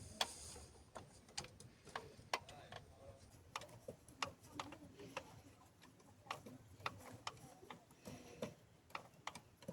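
Faint, irregular metallic clicks of a hand wrench loosening the two mounting bolts of a power steering fluid reservoir, about one or two clicks a second.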